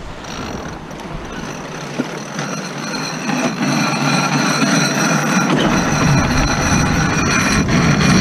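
Corsair F-27 trimaran sailing fast through a jibe: rushing water and wind with a steady high-pitched whine and scattered sharp clicks, growing louder in the second half.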